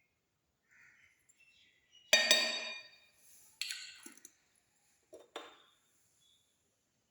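Slime being handled: a few sharp, short sounds with a ringing edge, the loudest about two seconds in, another a second and a half later, then two quick clicks.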